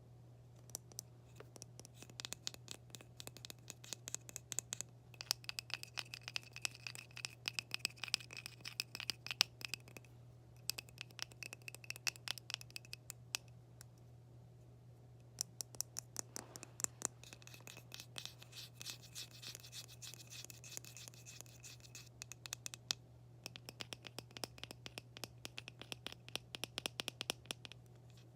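ASMR tapping and scratching on a hard object: runs of rapid, crisp clicks with a faint ringing tone, broken by a few short pauses.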